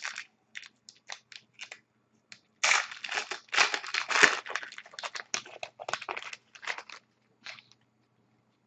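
Foil wrapper of a hockey trading-card pack being torn open and crinkled by hand. A few short crinkles come first, then a longer spell of tearing and crinkling from about two and a half seconds in.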